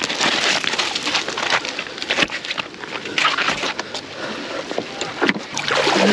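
Sea water washing and splashing over shoreline rocks, with wind noise on the microphone and scattered short knocks and splashes.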